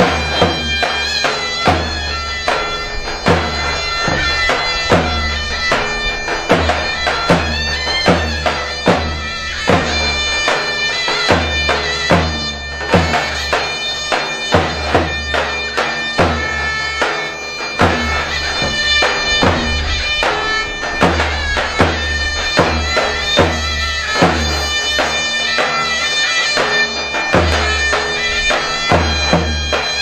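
Zeybek dance tune played on zurna, a shrill double-reed pipe, held high over heavy davul drum strokes in a slow, uneven beat.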